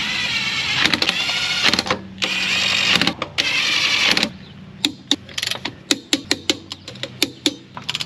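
A cordless power tool with a socket spins lug nuts onto a wheel in two long runs, its motor whining and bending in pitch. After that comes a quick, uneven run of clicks from a hand wrench ratcheting as the lug nuts are snugged down.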